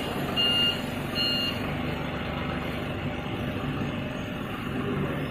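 Mitsubishi Grendia forklift running, with its reversing alarm giving two short beeps in the first second and a half, then falling silent while the engine runs on steadily.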